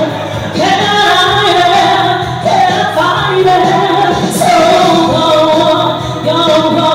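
A woman singing into a microphone over music accompaniment, her voice loud and amplified.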